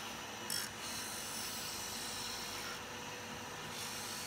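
Small bench-top hobby disc sander running with a piece of maple held against the disc, rounding it over: a steady sanding hiss over a faint motor hum, briefly louder about half a second in.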